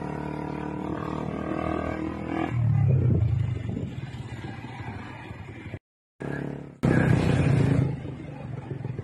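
Motor vehicle engine running with road noise, the sound jumping in level at abrupt cuts and dropping out for a moment about six seconds in.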